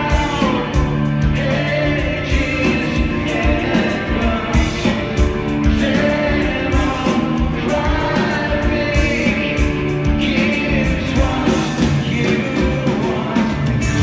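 Live rock band playing loudly through a concert PA, heard from the crowd: drums, electric guitars and bass, with vocals.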